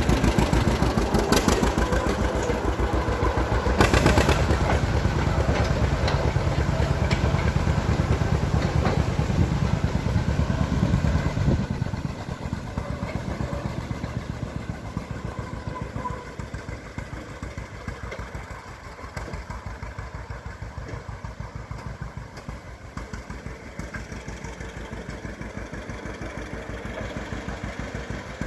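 1950 John Deere AR's two-cylinder gasoline engine running, with a quick, even train of firing pulses. It is loud at first, then drops to a lower level about twelve seconds in.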